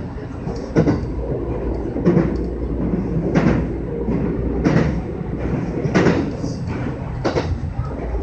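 JR West 225 series electric train running over a steel truss bridge, heard from inside the driver's cab: a steady rumble with a sharp clack from the wheels at even spacing, about every 1.3 seconds, the beat of rail joints passing under the wheels.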